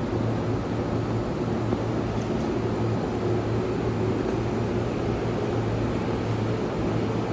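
Stationary E531-series electric train's steady hum of auxiliary machinery and air-conditioning, with a constant low drone.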